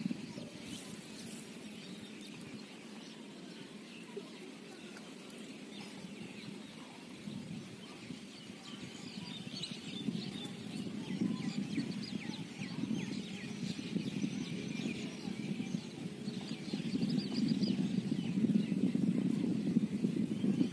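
Birds chattering, many short chirps one after another, over a low rumbling noise that grows louder near the end as a wet cast net is hauled in.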